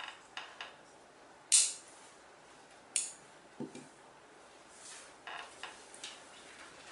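Sharp metallic clicks of a pair of scissors, the loudest about one and a half seconds in and another a second and a half later, among light rustling and a soft thump as cord and tinsel are handled.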